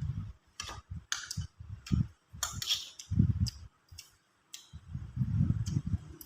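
Close-up eating sounds: chewing and crunching crisp food in irregular bites, with sharp clicks mixed in.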